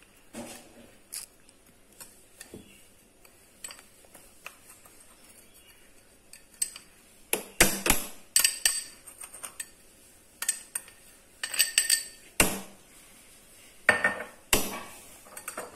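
A glass bowl knocking against the rim of a stainless steel pot and a spoon clinking and scraping in the pot: a series of sharp clinks with a metallic ring, sparse at first and coming thick and fast in the second half.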